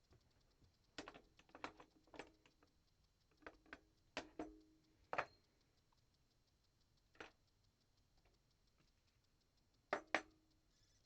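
Scattered sharp clicks and knocks of door lock hardware being handled and fitted, some with a short ring, in irregular clusters and a close pair near the end.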